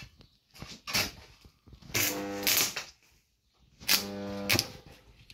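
A handheld electric power tool's motor runs in two short bursts, each under a second, about two seconds apart. A few light clicks and knocks come before them.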